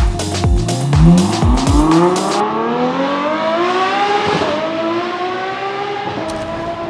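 Ferrari F12 TDF's V12 with a custom titanium exhaust accelerating, its pitch rising steadily for about four seconds and then holding. Over the first two seconds it plays against the last beats of dance music.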